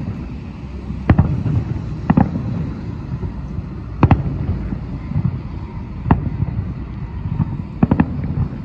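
Distant fireworks display: aerial shells bursting in sharp booms every second or two, some in quick pairs, over a constant low rumble.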